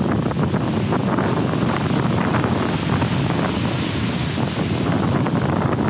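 Ocean surf breaking and washing up the shore, with wind buffeting the microphone in steady, gusty rushes.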